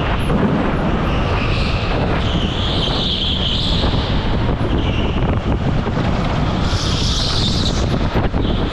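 Rental go-kart driving at race speed, heard from a camera mounted on the kart: a steady, loud drive and rolling noise, with brief higher-pitched patches as it goes through corners about three and seven seconds in.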